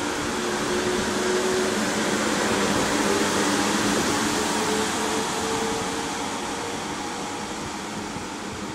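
SJ X2 (X2000) electric high-speed train pulling away from a platform and gathering speed past the listener: a steady rushing noise, with a faint whine that climbs in pitch as the train accelerates. It grows louder for about three seconds, then eases off as the coaches roll by.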